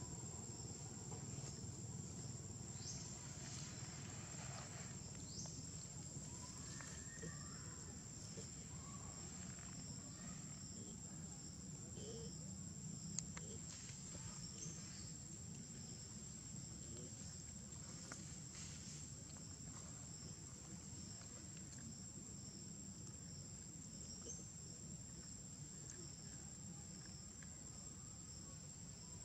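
Faint, steady high-pitched insect chorus of crickets trilling in vegetation, over a low background rumble, with a few faint short calls and one small click.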